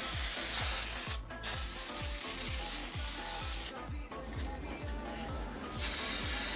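Background music with a steady kick-drum beat, over a constant high hiss that drops out briefly about a second in and again for about two seconds midway.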